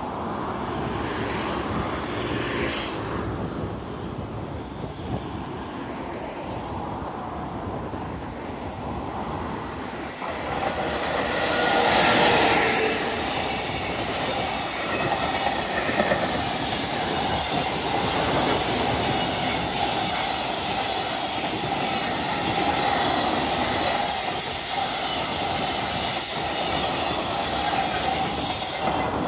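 JR Freight container train going past close by, hauled by an ED76 electric locomotive. The train comes in and is loudest about twelve seconds in as the locomotive passes. Then a long string of container flatcars rolls by with wheels clattering over the rail joints and a steady ringing tone.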